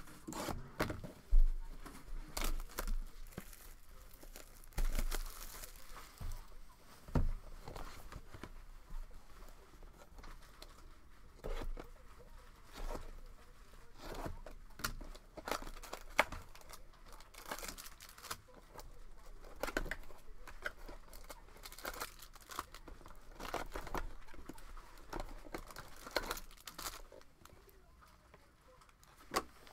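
Packaging of a football card hobby box and its packs being torn open and crinkled, with irregular rustling and clicks as cards and wrappers are handled. The sharpest click comes about a second and a half in.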